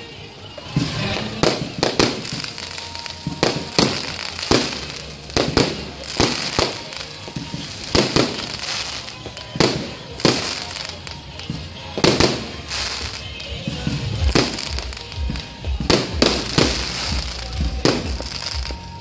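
Aerial fireworks display: shells bursting in sharp bangs and crackles, about one or two a second at irregular intervals.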